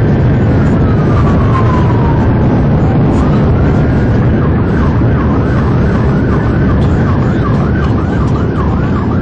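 Police car siren heard from inside the moving cruiser: a slow wail falling in pitch, switching about three seconds in to a fast yelp of rapid up-and-down sweeps, over loud road and engine noise.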